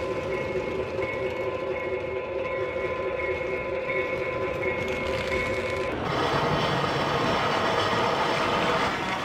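O gauge electric toy trains running on three-rail track: a steady motor whine over wheels rattling on the rails. About six seconds in, the sound changes abruptly to a different train running by, slightly louder and rougher.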